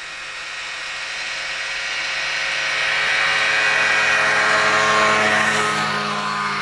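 Snowmobile engine running as the machine drives past. It grows louder to a peak about four to five seconds in, then drops in pitch and fades as it moves away.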